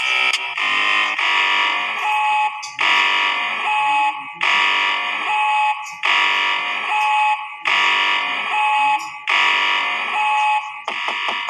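Emergency alert system alarm: a harsh, buzzing electronic alarm tone sounding in repeated blasts, one about every second and a half, each ending in a brief steady tone.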